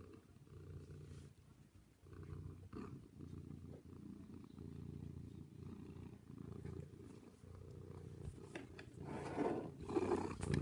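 Domestic cat purring, a low rumble that swells and breaks off in a regular rhythm about once a second. Near the end, louder rustling and bumping close to the microphone.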